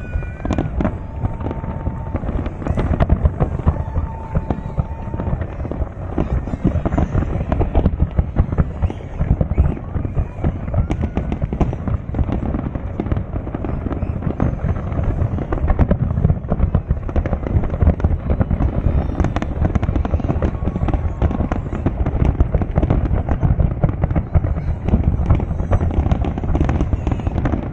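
A fireworks display: a dense, continuous barrage of bangs and crackling.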